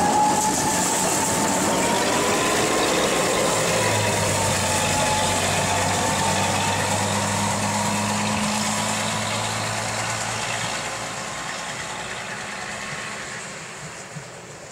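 Small Köf II diesel shunting locomotive running under power as it moves off, its engine note steady with a wavering whine above it. It fades gradually over the last few seconds as the locomotive draws away.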